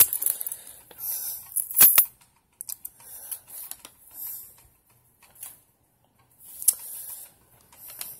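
Handling noises: a few sharp clicks, the loudest about two seconds in, and short rustling bursts with quiet gaps between them.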